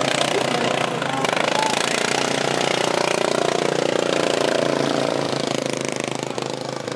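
Several racing lawn mower engines running hard, with the engine pitch sweeping up and down around the middle as mowers pass close by.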